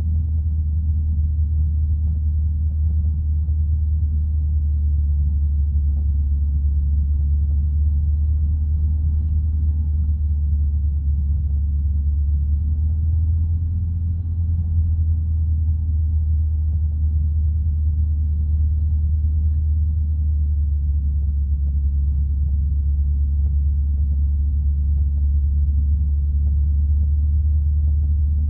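Single-engine light aircraft's piston engine and propeller droning steadily inside the cockpit, a low, even rumble that dips briefly about halfway through.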